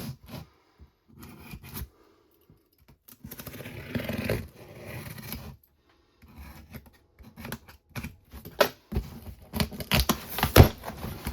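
Cardboard box being cut and torn open by hand, with intermittent scraping and tearing of tape and cardboard. Several sharp knocks and rustles come near the end.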